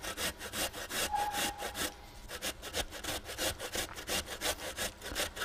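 A peeled raw potato grated fast on a stainless steel box grater: quick, even scraping strokes, about four or five a second.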